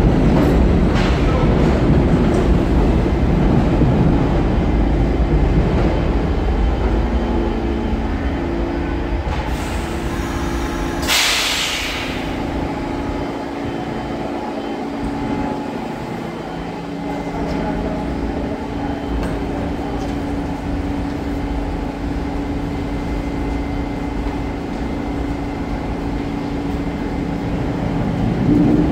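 R46 subway train pulling into a station, its low rumble fading as it slows to a stop. About eleven seconds in there is a brief loud burst of air hiss, and then a steady hum while the train stands at the platform.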